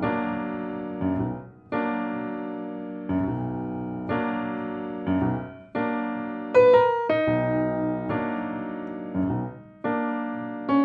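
Background piano music: slow chords struck about once a second, each ringing and fading before the next, with a louder higher chord about two-thirds of the way through.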